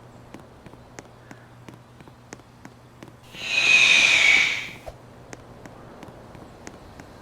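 Mitsubishi Electric Mr.Slim inverter air conditioner running with a low hum and a regular light ticking, about three ticks a second. About three seconds in comes a loud hiss lasting about a second and a half.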